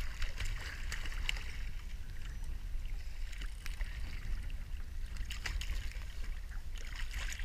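Sea water splashing and sloshing beside a small boat, with a steady low rumble of wind on the microphone and scattered short splashes and rattles as a gull flaps at the surface.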